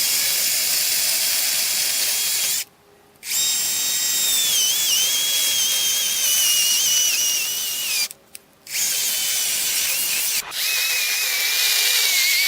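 Battery-powered electric chainsaw cutting a felling notch into a tree trunk: a high motor whine over chain noise, in three runs with two short pauses, its pitch sagging as the chain bites into the wood.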